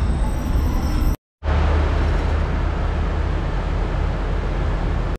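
Steady low rumble and noise of a train carriage. It drops out to silence for a moment about a second in, then resumes.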